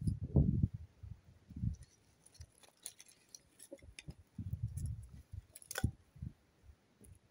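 Dry wooden kindling sticks clicking and clacking against each other as they are handled and laid on a small fire, with a sharp clack a little before the end. Low, uneven rumbles come and go underneath.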